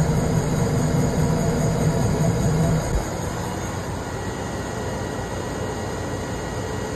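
Vertical milling machine with its cutter facing a bore in a cast aluminium intake manifold. The cutting noise, with a droning low tone, runs until about three seconds in, then drops to a quieter, steadier running sound.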